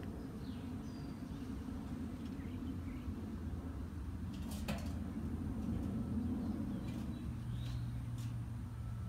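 Outdoor ambience: a steady low rumble with a few faint bird chirps and a sharp click about halfway through. A steady low hum comes in about two-thirds of the way in.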